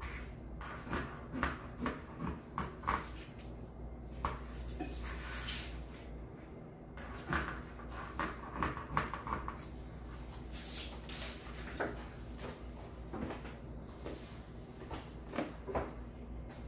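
Scissors snipping through stiff metallic deco mesh, in runs of short crunching cuts, with the mesh rustling as it is handled between cuts.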